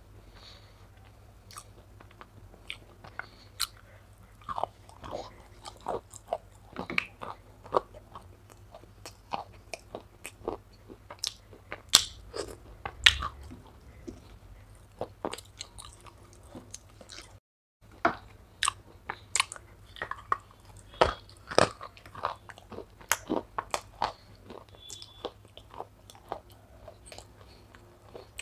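Close-miked biting and chewing of wet clay paste: a run of sharp, irregular crunches, clicks and mouth smacks.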